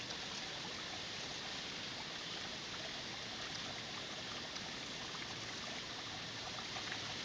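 Waterfall falling into a pool, a steady splashing rush with faint drips.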